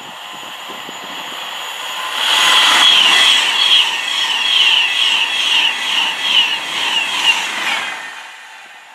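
Class 390 Pendolino electric train passing at speed. The noise builds over about two seconds, stays loud for about six seconds with a high whine that pulses at an even rhythm, then fades.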